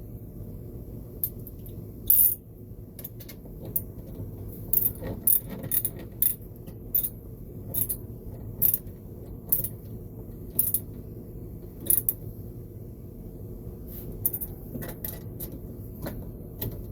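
Irregular light metallic clicks and clinks from hand tools and small metal parts, roughly one every half second to second, as fasteners on a radial arm saw motor are tightened during reassembly.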